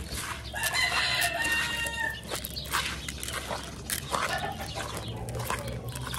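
A rooster crows once, starting about half a second in and lasting about a second and a half, over soft wet clicks and squishes of hands kneading moist grain feed in a plastic bowl.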